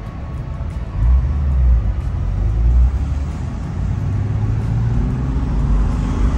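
Car engine running while the car is driven, a steady low engine note that gets louder about a second in.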